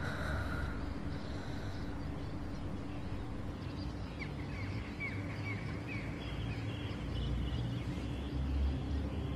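Steady low rumble of background ambience, with a run of faint, short, falling bird chirps from about four to seven seconds in.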